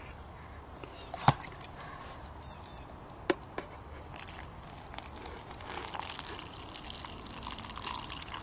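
Freshly brewed coffee trickling from the coffee pot into a mug. Sharp knocks about one second and three seconds in are the pot and mug being handled.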